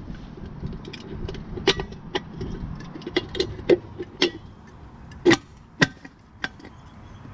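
Chrome spiked hub cap on a semi truck's front wheel being worked onto the hub, metal clicking and clinking as it is seated and locked in place, with two louder clicks just after five seconds.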